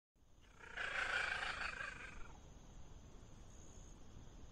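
A cat's call: one drawn-out cry lasting about a second and a half, starting about a second in, then a faint steady hiss.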